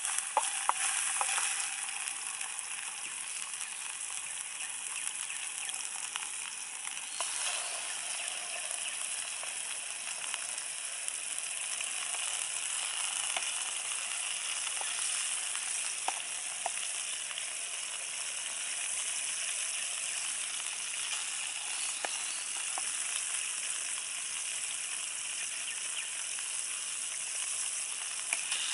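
Food sizzling in hot oil in a pan: a steady hiss with scattered small pops and crackles.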